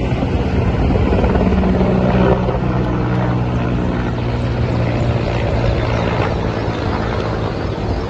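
Firefighting helicopter flying overhead: a loud, steady drone of rotor and engine.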